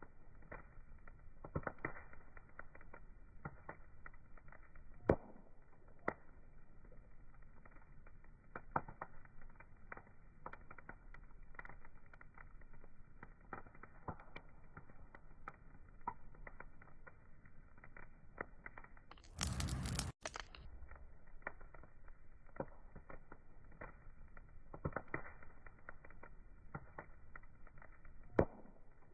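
Wood fire crackling: irregular sharp pops and snaps over a faint steady hiss. A loud rush of noise lasting about a second breaks in about two-thirds of the way through.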